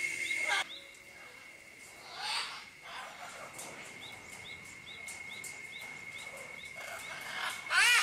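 Two harsh macaw squawks, the first about two seconds in and a louder one at the very end, over a steady high-pitched drone and quick repeated chirps.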